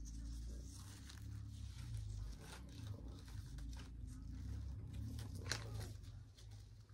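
Rustling and crinkling of metallic deco mesh ribbon being handled and arranged on a gift basket bow, with a sharper crackle about five and a half seconds in, over a steady low hum.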